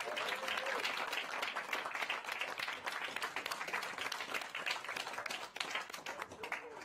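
A small room of people applauding, many hands clapping together. The clapping thins and dies away near the end.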